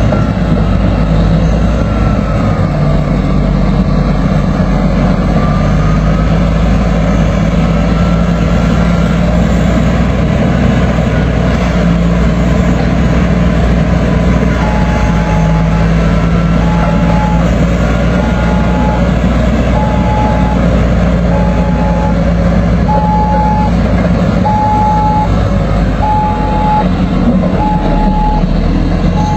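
Bulldozer's diesel engine running steadily. From about halfway, a reversing alarm beeps about once every second and a half as the machine backs up.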